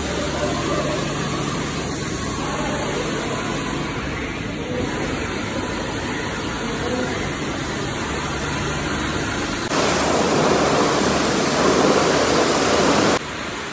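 Truck-wash spraying: a steady hiss of water with a faint low hum. About ten seconds in, a much louder high-pressure washer jet comes in, runs for about three and a half seconds, and cuts off suddenly.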